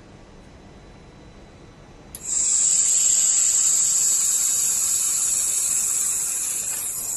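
Handheld fiber laser welding gun welding thin sheet metal: a click about two seconds in, then a loud, steady high-pitched hiss with a thin whine running through it, easing off near the end.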